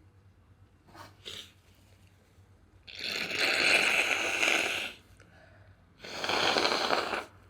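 Two long, noisy rushes of breath, the first about two seconds long and the second just over a second, with a couple of faint clicks shortly before them.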